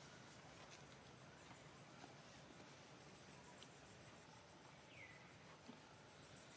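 Faint, steady chirring of insects in a high, finely pulsing band, with one short falling chirp about five seconds in.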